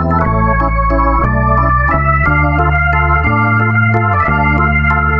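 Intro music of sustained organ-like chords over a slow bass line that moves to a new note about once a second, starting abruptly.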